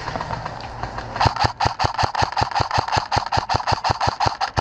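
Airsoft rifle firing full-auto: a rapid, even string of shots at about eight a second, starting about a second in, with a brief break near the end.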